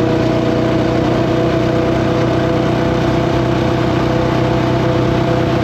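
Husqvarna 701's single-cylinder engine running at a steady cruising speed, its pitch holding even throughout, with a haze of road and wind noise over it.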